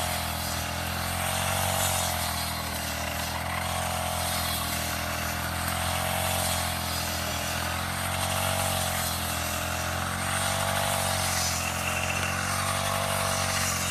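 Honda GX35 four-stroke brush cutter engine running at working speed while cutting grass with a circular blade. Its pitch wavers gently up and down every couple of seconds as the load changes.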